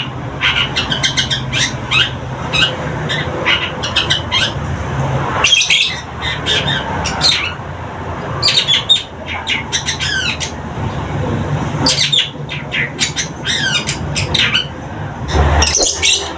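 Young long-tailed shrike (cendet) singing a continuous chattering song of rapid sharp notes mixed with harsh squawks, with short breaks about six and twelve seconds in. It is a newly singing bird, just starting its full song.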